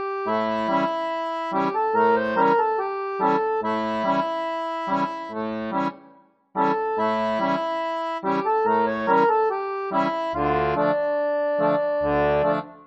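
Instrumental background music with a regular beat. It stops briefly about halfway through, then resumes, and a deeper bass part comes in near the end.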